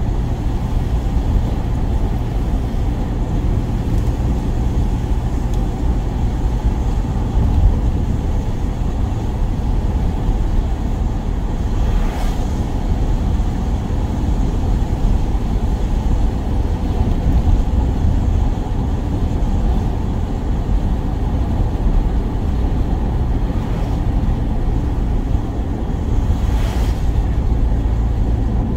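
Steady low rumble of a van driving on the road, with two brief hissing swells, one a little before halfway and one near the end.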